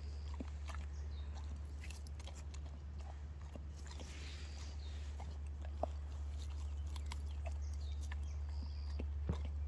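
A dog tearing at and chewing grass: irregular crisp snaps and crunches of grass blades being bitten off, over a steady low hum.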